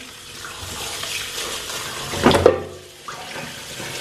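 Cold tap water running over boiled noodles in a colander as they are rinsed. A louder splash about two and a half seconds in, then the flow drops away.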